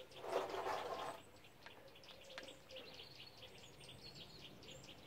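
A short scuff as a plastic catch can is set down and shifted on the brick drive under the car, then birds chirping faintly.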